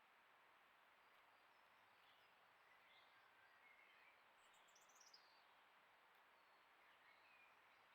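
Near silence: faint outdoor background hiss with a few distant bird chirps, including a quick run of chirps about halfway through.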